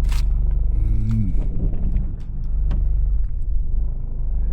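Steady low rumble of a car heard from inside the cabin while driving, with a few small clicks and rustles.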